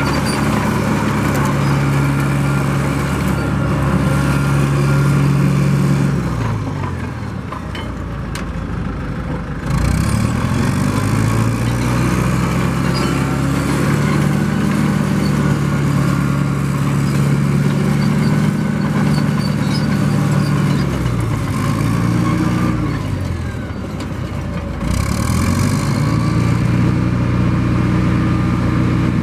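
Caterpillar 955K crawler loader's diesel engine running under throttle as the machine is driven on its tracks. The engine note drops twice, around seven and twenty-three seconds in, then climbs back up.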